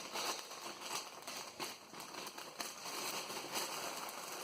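Faint rustling and a few light clicks of small diecast toy cars being handled and unpacked from a box.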